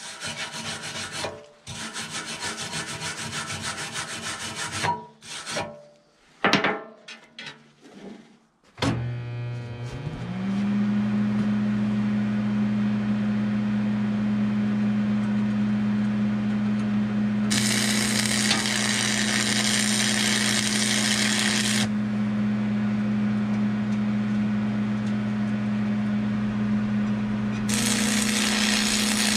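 Scratchy rubbing on steel with a few knocks, then a steady low electrical hum from the stick welder from about nine seconds in. A 7014 electrode's arc crackles and hisses for about four seconds in the middle, and strikes again near the end.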